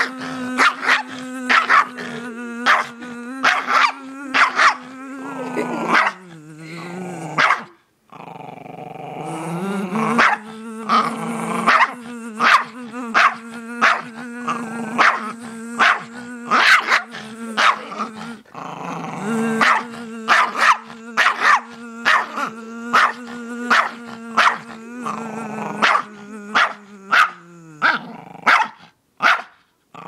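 Chihuahua barking and growling, about two barks a second, at a steady bee-like buzzing hum that is held for long stretches, dips in pitch and stops twice before starting again.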